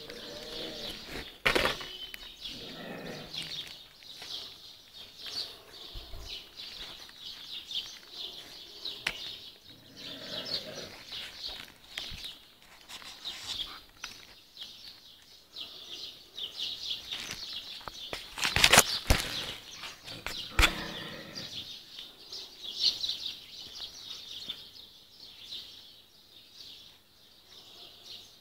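Many birds chirping continuously in a dawn chorus, with a few sharp knocks, the loudest about two-thirds of the way through.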